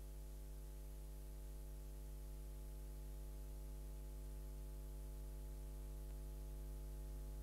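Steady electrical hum: a strong low drone with a buzzy stack of higher overtones over a faint hiss, unchanging throughout.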